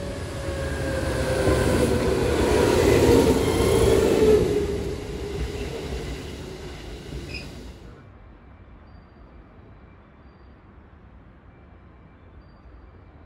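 JR West 221 series electric train running past close by: the rumble of its wheels and motors swells to a loud peak about three to four seconds in, with a whine falling in pitch as it goes by, then fades. About eight seconds in, it cuts to a much quieter station background.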